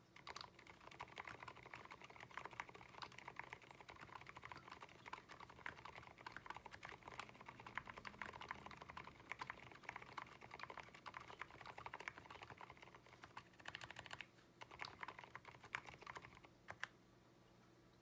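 Continuous fast typing on an Abko AR87 mechanical keyboard fitted with fully lubed Aliaz silent tactile switches, a dense run of keystrokes with a brief pause about 14 seconds in. The typing stops about a second before the end.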